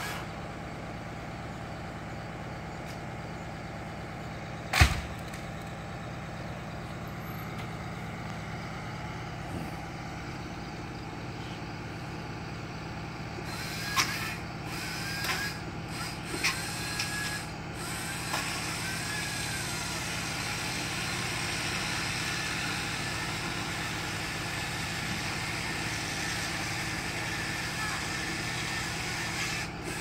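Bucket truck's engine running steadily, with one loud sharp thump about five seconds in and a few lighter knocks and clicks further on.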